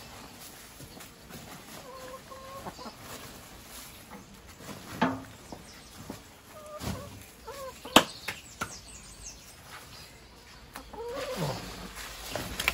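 Chickens clucking, with short calls scattered through and a sharp knock about eight seconds in.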